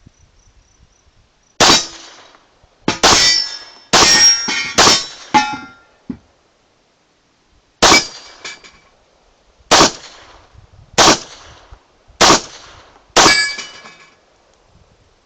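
Browning Hi-Power 9mm pistol firing about nine shots of handloaded ammunition, each a sharp crack with a short ringing tail. The first four come in quick succession, then after a pause of about two seconds five more follow roughly a second apart.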